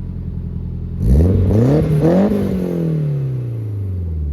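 Car engine idling steadily, then revved once about a second in: the pitch climbs quickly and then falls slowly back toward idle.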